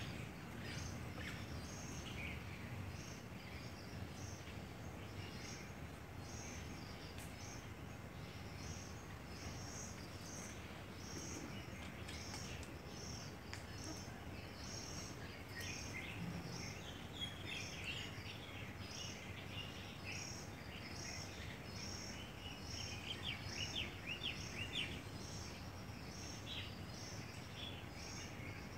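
Steady outdoor background noise with a high, thin chirp repeating about once a second. Scattered quicker chirps come and go over it, busiest and loudest a few seconds before the end.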